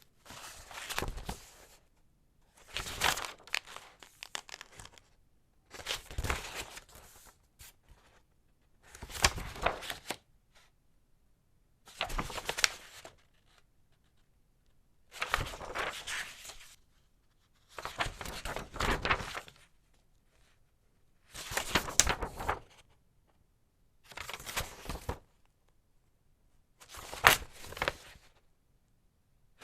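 Thick paper pages in a file folder being flipped one at a time: ten crisp rustling page turns, about one every three seconds, with silence between.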